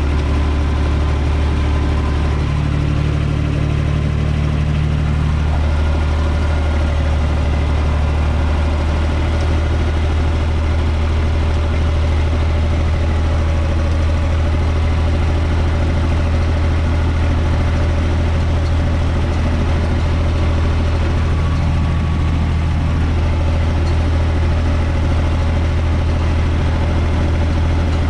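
UTB 445 tractor's four-cylinder diesel engine running steadily at a constant speed, heard from inside the cab, while it drives a rear-mounted rotary tiller through the soil.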